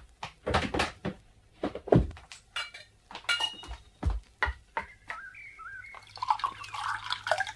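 Radio-play sound effects: several knocks and a ringing clink of crockery, then wine being poured into a cup in the last two seconds or so.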